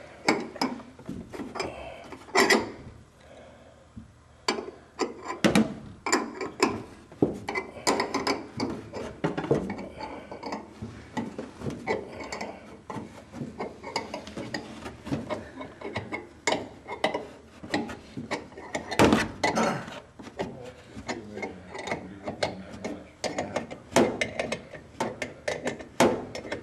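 Irregular metallic clicks and knocks from a rod tool working inside an aluminium wing leading edge, pushing out a bird-strike dent. The loudest knock comes about two-thirds of the way through.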